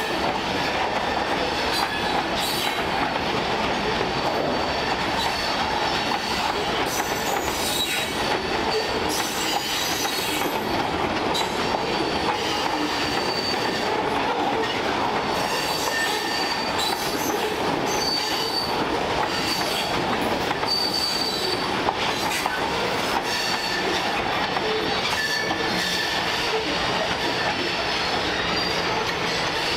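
Freight cars rolling past: a steady rumble of steel wheels on the rails, with clacking over rail joints and a thin high wheel squeal that comes and goes.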